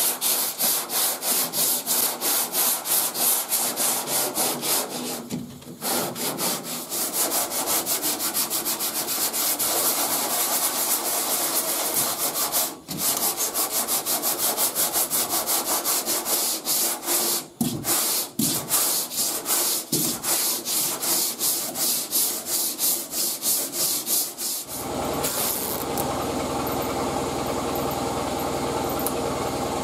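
40-grit sandpaper on a long hand sanding board rasping back and forth over hardened body filler in quick, even strokes, with a few brief pauses: block sanding the filler down to find and level its high and low spots. Near the end the strokes stop and a steady mechanical hum takes over.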